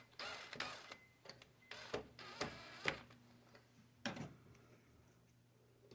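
A cordless screw gun briefly driving a screw gently, followed by a few separate light clicks and knocks of small parts being handled.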